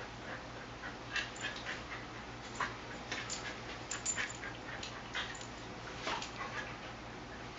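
Two dogs play-fighting: scattered short yips and whimpers, with scuffling on the bedding.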